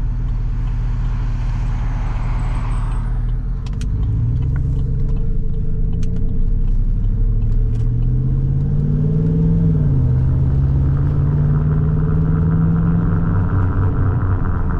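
Silverado 2500HD's 6.0-litre Vortec V8 with an aftermarket exhaust accelerating, its pitch rising for several seconds, dropping at an upshift about ten seconds in, then holding steady. Heard through an open window, with a steady buzzing hum from its badly worn, chopped tires coming in over the last few seconds, sounding like studded tires.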